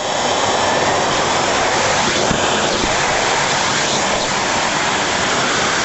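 Philips canister vacuum cleaner running, a loud steady rush of motor and air with small shifts in tone as it works over the floor.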